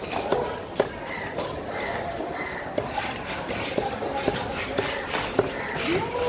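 A large knife chopping fish pieces on a wooden block: a string of sharp, irregular knocks as the blade strikes through into the wood.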